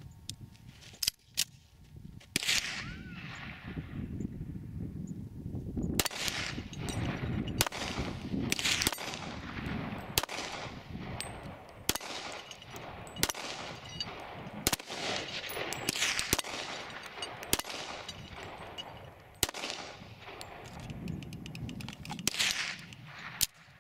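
A string of shots from a Griswold-pattern black-powder cap-and-ball revolver, roughly one to two seconds apart, each shot followed by a trailing echo.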